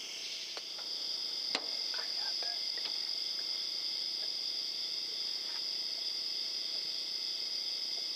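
Steady night chorus of crickets, a continuous high-pitched trill. A sharp click comes about one and a half seconds in, after which the chorus is slightly louder, with a few faint ticks and rustles.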